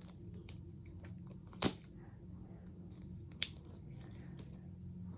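Small plastic toy pieces and capsule parts being handled, giving light ticks and taps with two sharp clicks, about a second and a half in and again near three and a half seconds, over a low steady hum.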